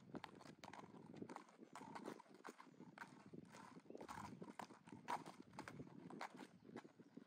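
A horse's hooves clip-clopping on a paved road as it is ridden at a steady gait: faint, quick, evenly spaced hoofbeats.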